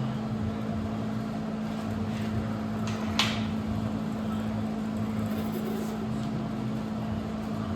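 Steady mechanical hum of a running machine, with one sharp click about three seconds in.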